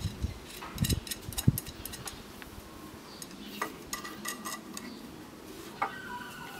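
Steel nuts being spun by hand onto the end of a 10 mm threaded rod: scattered metallic clicks and clinks, the loudest about a second and a half in, with a few short ringing clinks near the middle and the end.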